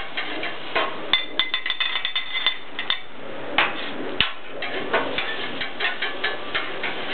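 Metal spatulas clacking and scraping on a steel Blackstone griddle while rice is worked, irregular sharp clacks over a steady sizzling hiss. Between about one and three seconds in comes a quick run of ringing metal clinks.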